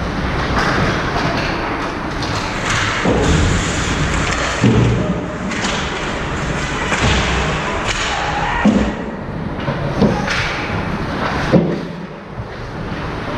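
Ice hockey play in a rink: a steady scraping haze of skates on the ice, broken by several sharp thuds, the loudest about two-thirds of the way in.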